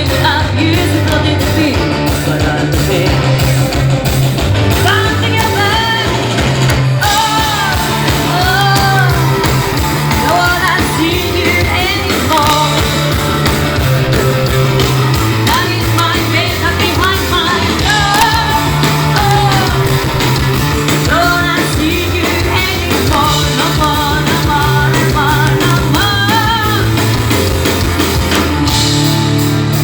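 A rock band playing live, with a sung vocal line over the band from about five seconds in until near the end.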